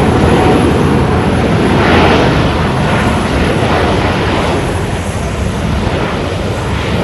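Jet airliner's engines, loud and gradually fading as the aircraft moves away.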